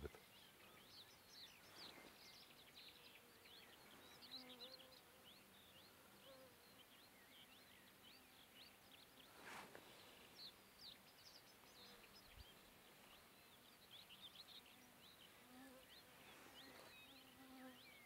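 Near silence of a meadow at dusk: faint, high, scattered chirps of distant small birds and a faint insect buzz that comes and goes.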